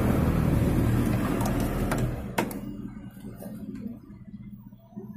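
Low rumble of a passing vehicle that dies away about two seconds in, followed by a single sharp tap as a wooden ruler is laid down on the fabric.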